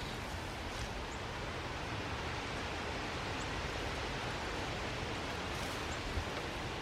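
Steady outdoor background hiss with no clear source, and one short low thump about six seconds in.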